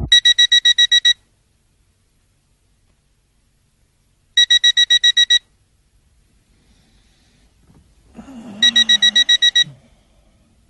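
Electronic alarm clock beeping: three groups of about eight quick high beeps, each group lasting about a second and coming roughly every four seconds. A low voice-like sound rises under the third group.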